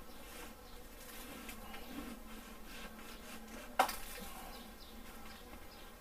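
Honeybees buzzing steadily in a low hum around a hive cavity in a ceiling, with one short sharp knock from work inside the cavity about four seconds in.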